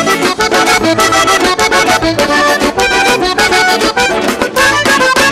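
Accordion playing an instrumental break, a quick melody over a live band's drums, bass guitar and acoustic guitar, with a steady driving beat.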